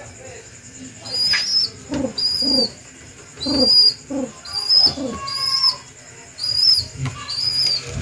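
Young pigeon squab, not yet able to fly, giving repeated short, high-pitched squeaking calls, about one a second, with some lower, softer sounds between them midway.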